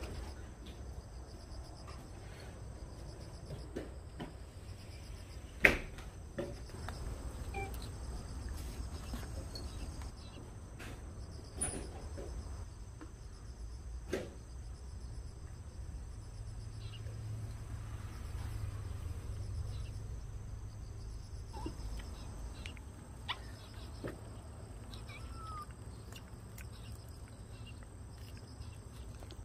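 A steady chorus of insects chirping in fast, even pulses, with a low rumble underneath. A few sharp clicks stand out, the loudest about six seconds in.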